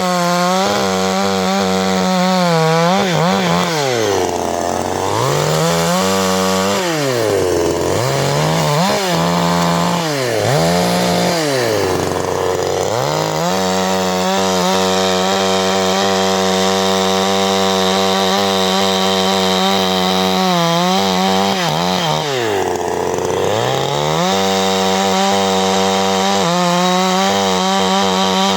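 CanFly 54.6 cc two-stroke chainsaw engine running at high revs, the throttle let off several times so the revs drop and climb back up, twice falling deep toward idle.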